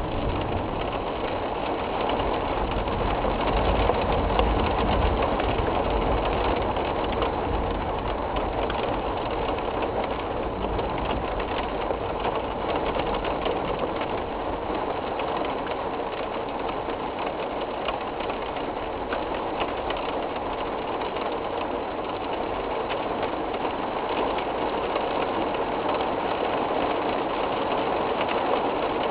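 Severe storm: a steady roar of strong wind and heavy rain, with gusts buffeting the microphone as a low rumble from about three to seven seconds in.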